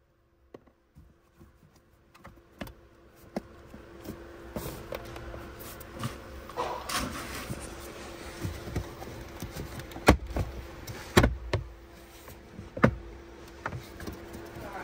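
Scattered clicks and knocks of hands working at the plastic lower dashboard trim of a Vauxhall Corsa E, over a faint steady hum. The sharpest knocks come in the second half.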